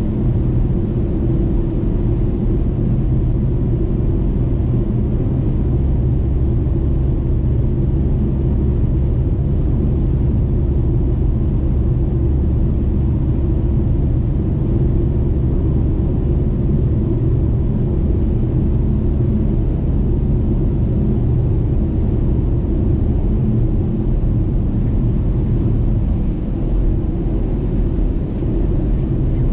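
Steady low rumble of a car's tyre and engine noise at highway speed, heard from inside the car.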